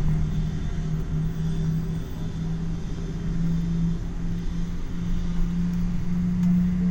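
Engine and running hum of a moving vehicle, heard from inside its cabin: a steady low drone whose pitch rises a little near the end.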